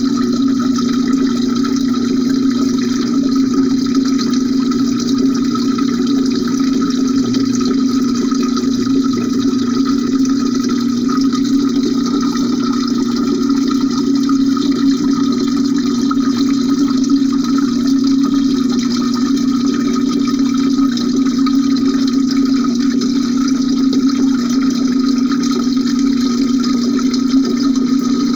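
Water of a homemade cement fountain's cascade, heard from underwater through the glass jar holding the phone: a steady, unbroken rush.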